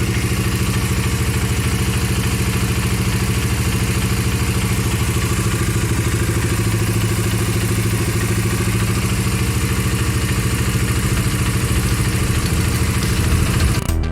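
Bajaj Dominar 250's single-cylinder engine idling steadily after a used exhaust camshaft has been fitted, running without the earlier camshaft fault noise.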